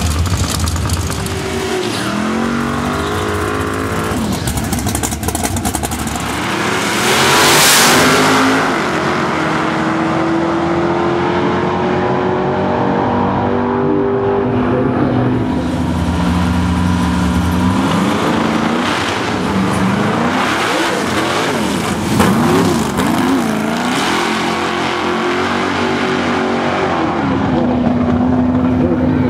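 Drag radial race car engines running hard on a drag strip, with a loud surge about seven seconds in as the cars go past. Later the engine pitch swings up and down quickly, then settles into a steady held note near the end.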